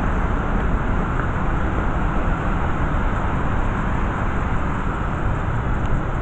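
Steady rush of water pouring down an outdoor waterfall fountain, an even noise with no breaks.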